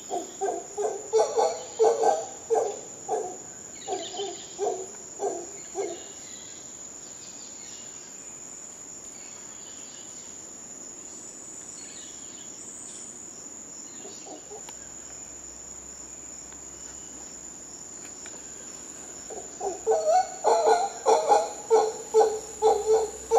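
Mantled howler monkeys calling in a rhythmic series of short, low grunting calls, about two a second. The calls stop about six seconds in and start again near the end. A steady high-pitched insect drone runs underneath throughout.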